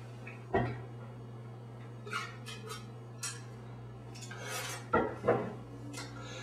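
A plastic spit cup and a wine glass handled on a table: a knock, a few light clicks, then a short hiss of wine spat into the cup about four seconds in, followed by two louder knocks. A steady low hum runs underneath.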